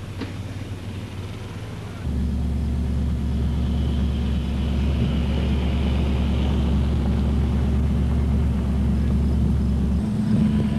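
Steady low vehicle rumble, getting abruptly louder about two seconds in and changing again near the end.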